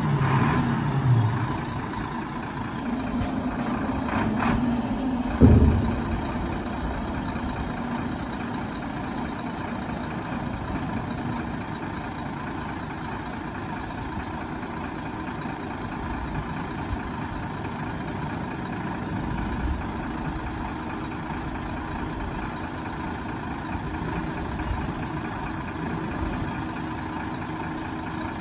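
Sinotruk HOWO 371 hp 8x4 dump truck's diesel engine idling steadily while the tipper body lowers, with a loud thump about five seconds in.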